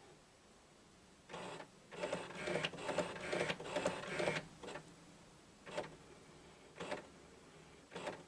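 HP 6968 inkjet printer going through its power-up routine: a brief motor spell, then about two and a half seconds of busy motor whirring and clicking as its mechanisms cycle, then three short whirs about a second apart.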